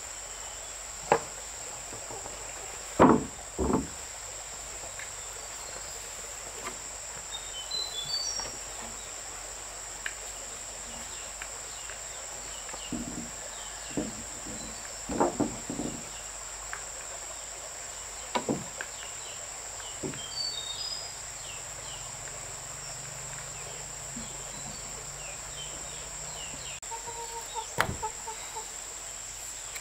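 Insects buzzing steadily at a high pitch, with bird chirps and scattered sharp knocks and taps, the loudest two about three seconds in. A faint low hum runs for several seconds past the middle.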